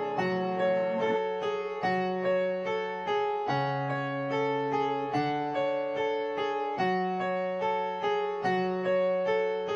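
Looped keyboard melody from a trap-beat sample, with no drums yet: short repeated keyboard notes in a steady rhythm over low notes that change about every one and a half seconds.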